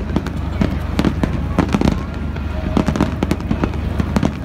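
Fireworks display: aerial shells bursting, with an irregular run of many sharp pops and crackles over a steady low rumble.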